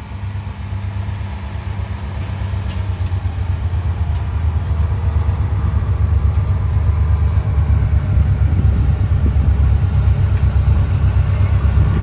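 Vehicle engine running with a fast, low pulsing, growing steadily louder.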